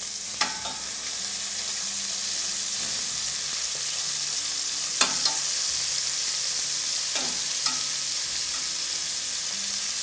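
Flour-dredged pheasant breasts sizzling steadily in clarified butter in a stainless steel sauté pan. A handful of sharp clicks come from a metal meat fork knocking the pan as the pieces are turned, the loudest about five seconds in.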